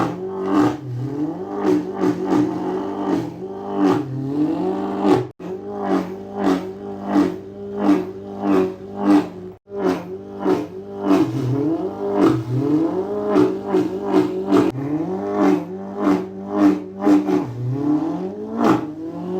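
A person imitating with the mouth a BMW M8 Competition drifting: engine notes that rev up and drop back again and again, with short sharp pops between them and two brief breaks.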